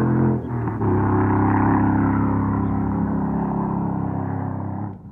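Motor vehicle engine running at a steady speed, with a brief break about half a second in, then dropping away near the end.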